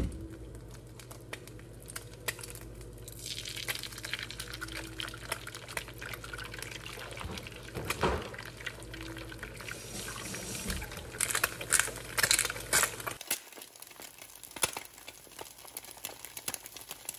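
Eggs frying in a frying pan: a steady sizzle full of crackling that starts about three seconds in, after a few sharp clicks.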